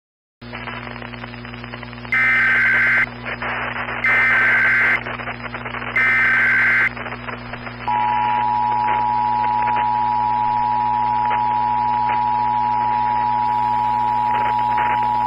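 Emergency Alert System tones. Three short bursts of the warbling digital SAME header screech come about two seconds apart. About eight seconds in, the steady two-tone EAS attention signal starts and holds, all over a steady low hum and hiss.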